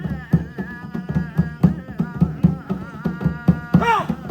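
Music: a fast hand-drum rhythm of several strikes a second under a melodic line that slides and bends between notes.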